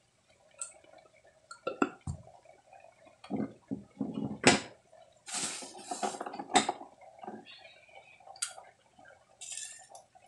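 Kitchen handling sounds: scattered clinks and knocks of utensils and containers being picked up and set down, with a few short rustling bursts, over a faint steady hum.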